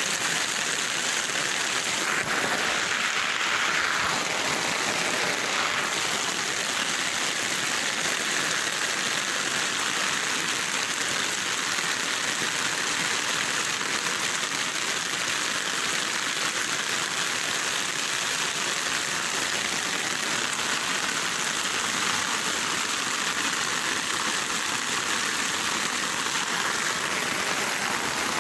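Heavy rain falling steadily, mixed with the rush of floodwater running along the lane, an even, unbroken hiss.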